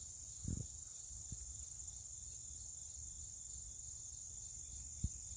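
Insects chirring steadily in a single high-pitched band, with two soft low thumps, one about half a second in and one near the end.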